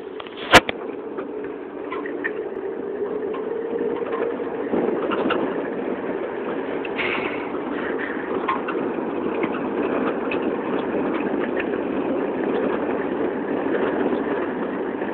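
Pickup truck driving slowly along a dirt road, a steady rumble of engine and tyres that builds over the first few seconds and then holds, with one sharp click about half a second in.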